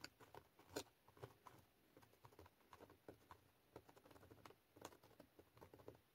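Faint, irregular scratching and tapping of a marker tip tracing along the cut edges of a plastic stencil onto paper.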